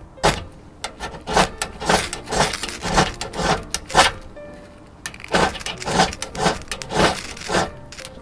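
A ferro rod (fire steel) scraped again and again with a metal striker to throw sparks: short, sharp scrapes about twice a second, with a pause of about a second near the middle before the strikes resume.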